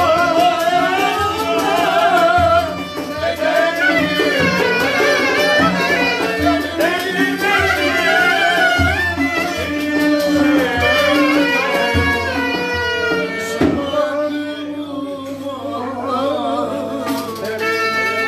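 A Turkish folk ensemble plays live: a clarinet carries a quick, ornamented melody over violin and a steady hand-drum beat. The drum stops about fourteen seconds in and the melody plays on.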